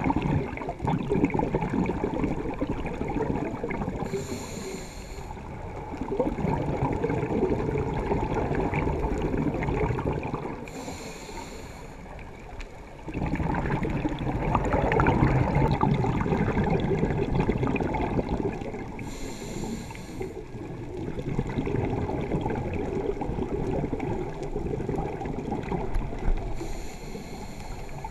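Scuba diver breathing through a regulator underwater. There are four short hissing inhales, about eight seconds apart, and after each one a long, bubbling gurgle of exhaled air.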